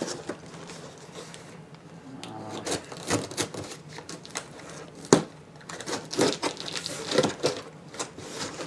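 Cardboard shipping box being opened with a blade and handled: irregular scraping, rustling and knocks, with one sharp knock about five seconds in.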